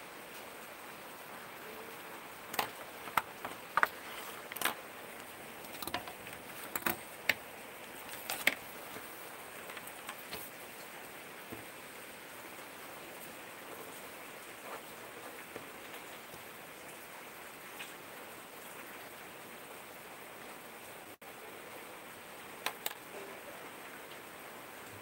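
Sharp clicks and taps from a Boat Signal Gold ballpoint pen and its metal cap being handled on a tabletop. They come in a quick cluster in the first third, with a couple more near the end, over a steady background hiss.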